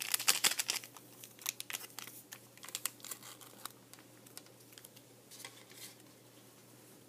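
Crinkling of a small foil candy-kit packet being handled, dense for the first second or so, then scattered crackles and clicks that die away.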